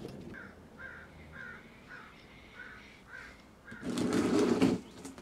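A bird calling repeatedly, six faint calls about half a second apart, then a louder noisy sound lasting about a second, near four seconds in.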